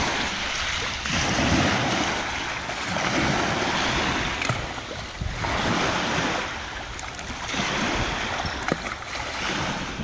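Small waves breaking and washing onto a pebble shore, the surf swelling and easing every couple of seconds, with wind rumbling on the microphone underneath.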